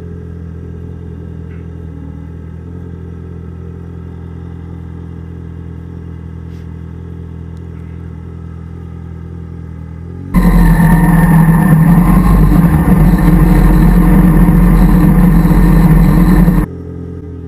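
Motorcycle engine running steadily at low speed as the bike rolls slowly. About ten seconds in, the sound jumps abruptly to a much louder, noisier stretch of engine sound, which stops just as suddenly about six seconds later.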